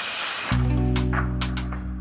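Background music: a hissing swell, then about half a second in a deep bass chord and guitar come in over regular percussion hits.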